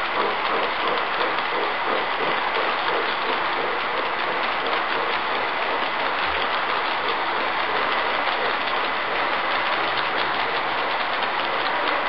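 G-scale model freight train rolling past close by, its wagon wheels running and clicking steadily over the track.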